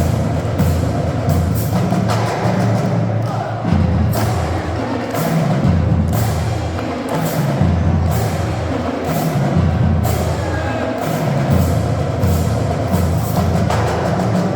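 Music with a steady, prominent drum beat over a bass line that moves from note to note.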